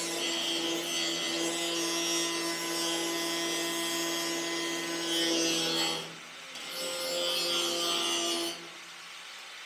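Angle grinder cutting the Unimog cab's sheet metal: a steady motor whine under a harsh grinding hiss. It eases off twice, about six seconds in and again near the end.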